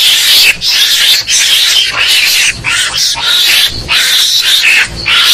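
Mongoose lure call: harsh, noisy squealing and chattering calls in quick bursts, several a second. It is the aggressive, fight-provoking call used to draw mongooses in.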